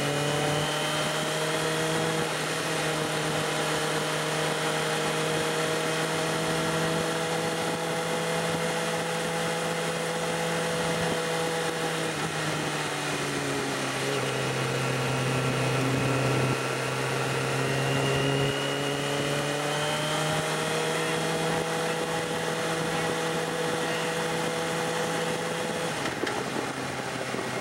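Sport bike engine running at steady road speed, with wind rushing past. Near the middle the engine note falls and then climbs again, and it eases off shortly before the end.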